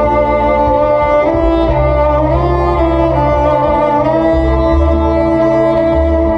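Six-string NS Design CR6 electric cello bowed over layered loops of its own playing. Several long held tones are stacked, with low bass notes changing every second or two.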